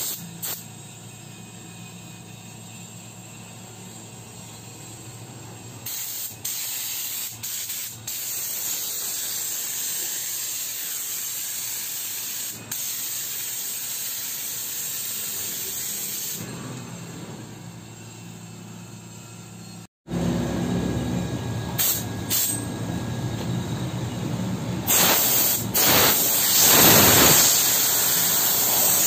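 INGCO pneumatic air washing gun spraying a fine mist of water driven by compressed air: a steady hiss in long bursts while the trigger is held. One long burst runs through the middle, and a louder one comes near the end after a brief dropout.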